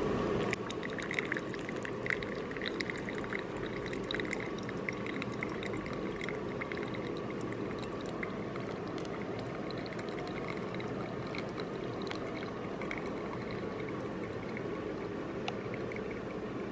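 Water poured steadily into a hand-drip coffee bag, a continuous pouring sound with small scattered drips and splashes.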